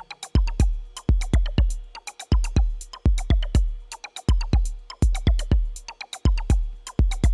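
Background electronic music with a steady drum-machine beat of deep kick drums.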